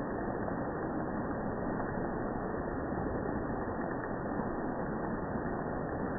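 Steady, muffled wash of rain and dripping water in the jungle, slowed down with the slow-motion footage so that it sounds dull, with no high end.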